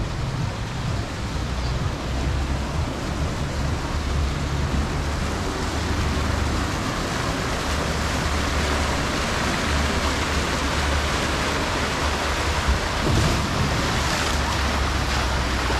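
A steady rushing noise that grows a little louder, with wind rumbling on the microphone.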